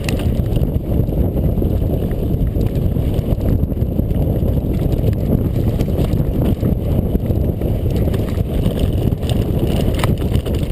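Wind buffeting the microphone over the rattle and rolling of mountain bike tyres on a dirt trail while riding, steady throughout, with one sharper click about ten seconds in.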